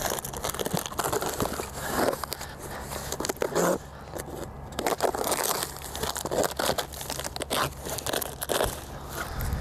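Cardboard shipping box being opened by hand: packing tape pulled and torn from the box, with irregular crinkling, scraping and rustling of the cardboard.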